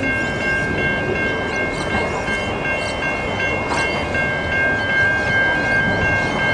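Level crossing warning bells ringing continuously in a steady repeating pattern of high tones, over a low rumble of wind on the microphone.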